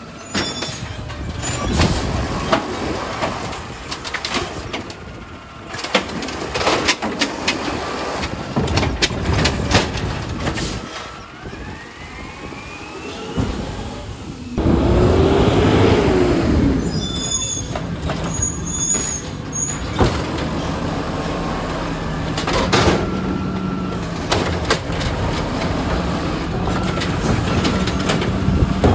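Recycling garbage truck working: its engine runs with repeated clanks and knocks throughout. About halfway through, a loud whine rises and then falls back, followed by a steady hum.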